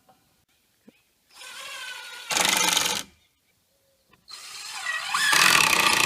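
Power driver driving two screws, one after the other, into a post's metal base flange. Each run starts with the motor whining, then gets much louder as the screw seats.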